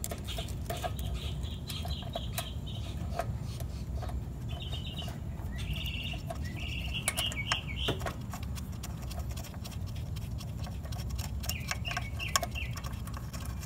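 Small clicks and taps as mounting screws and a replacement ignition coil are fitted by hand on a Briggs & Stratton mower engine, over a steady low rumble. Short high bird chirps come several times.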